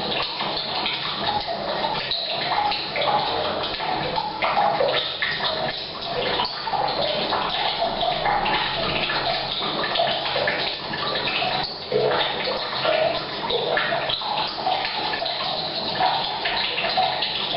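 Rain falling on a roof mixed with mains water running from a pipe into a tank, a steady wash of water noise that echoes in a bathroom.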